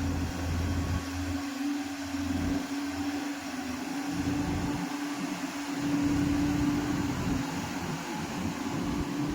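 Heavy earthmoving machine's diesel engine running, a steady droning tone over an uneven low rumble.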